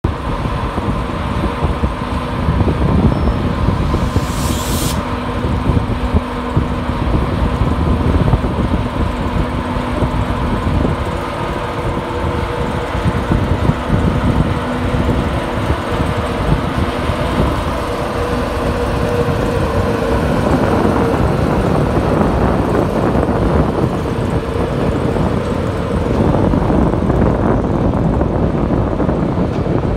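Class 91 electric locomotive pulling its train away at low speed, a steady electric hum over the low rumble of wheels on rail. A short hiss about four seconds in; the hum fades about two-thirds of the way through as the locomotive draws off, leaving the rumble of the passing coaches.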